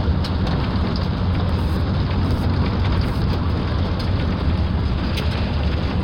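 Steady road and engine noise of a moving car heard from inside, a low rumble with an even hiss over it.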